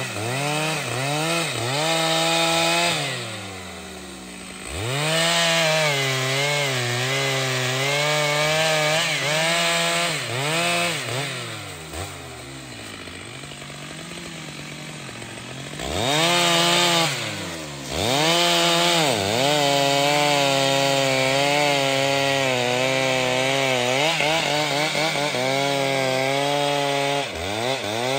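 Large two-stroke professional chainsaw cutting through trembesi (rain tree) wood. Its engine pitch repeatedly sags and recovers as the chain loads in the cut. Twice it drops to a quieter, lower run, about three seconds in and again from about twelve to sixteen seconds, before revving back up.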